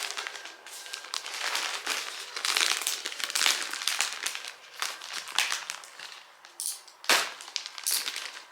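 Packaging crinkling and rustling in irregular bursts as a parcel is unwrapped by hand, with one sharper snap about seven seconds in.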